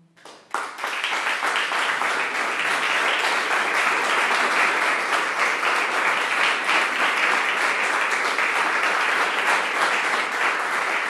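Audience applauding. It breaks out with a few scattered claps in the first half-second, then becomes full and steady.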